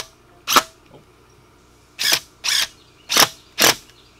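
Cordless drill driving a screw into a wooden door sill in short trigger bursts: five brief bursts, one about half a second in, then two pairs from about two seconds in.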